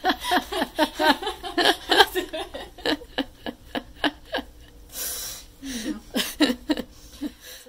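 A woman laughing: a long run of short, quick laughs, a breathy exhale about five seconds in, then a few more chuckles. The sound cuts off suddenly at the end.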